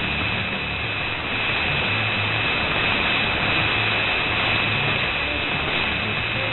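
Shortwave radio reception on 6280 kHz through a software-defined receiver: dense static hiss with a steady high whistle running through it, and the station's music faint and buried beneath the noise.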